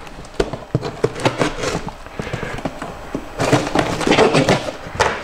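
A corrugated cardboard shipping box being opened by hand: flaps bending and scraping and brown packing paper rustling, with scattered knocks. The rustling grows louder about three and a half seconds in.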